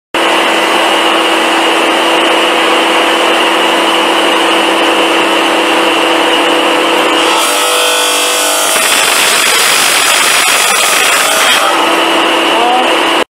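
Bench rubber-hose cutting machine running with its industrial dust-extraction vacuum, a steady whine with several held tones. From about seven seconds in the blade cuts through a rubber hose and a harsher, brighter hiss takes over, and a little before the end the machine runs free again.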